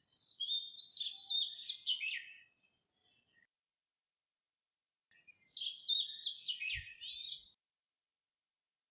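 Robin singing: two quick warbled phrases of high, jumping whistled notes, each about two seconds long, with a pause of about three seconds between them.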